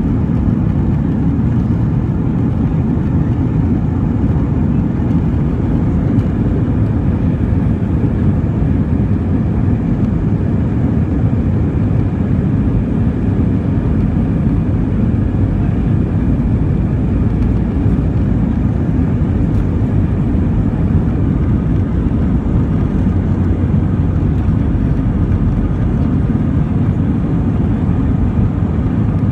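Airbus A320's two IAE V2500-A5 turbofan engines at takeoff thrust during the takeoff roll, heard inside the cabin: a steady, loud low rumble with no breaks.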